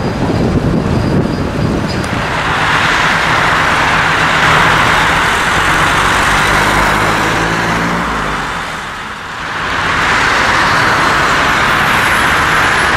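Road traffic noise: a steady rush of passing vehicles and tyres. One engine passes around the middle, its pitch falling slightly as it goes by, and the rush briefly dips before picking up again.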